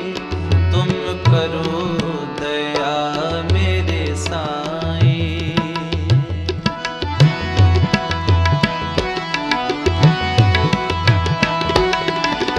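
Background music from a Hindi devotional song: tabla with its deep bass strokes repeating, under a held melodic accompaniment, in a passage without words.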